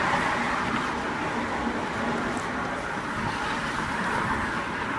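Steady hiss of city road traffic, even and unbroken.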